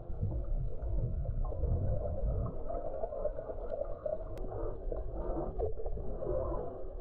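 Underwater sound picked up by a submerged GoPro: a muffled, steady low rumble of moving water with a few faint sharp clicks.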